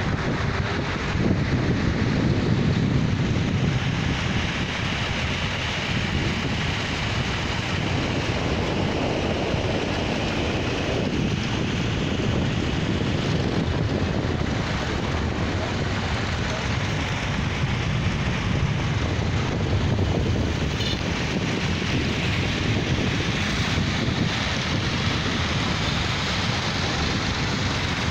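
Engines of a procession of vintage tractors running past one after another, blending into a steady low drone that swells slightly as each passes, with wind buffeting the microphone.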